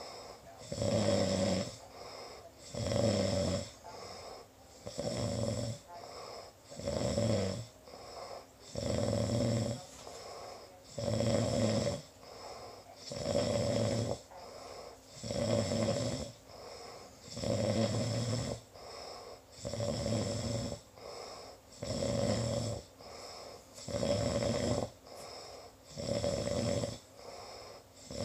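A person snoring in a steady rhythm: a loud snore about every two seconds, with a quieter breath between each.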